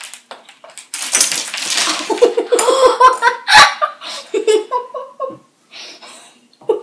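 Young girls laughing and giggling in bursts, with a noisy rush about a second in.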